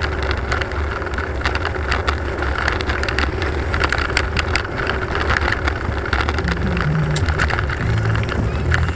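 Steady wind and road rumble on a bicycle-mounted camera, with frequent sharp clicks and rattles as the bike rolls over the paved road. From about six and a half seconds in, the low hum of a small motorbike engine comes in as a motorbike approaches ahead.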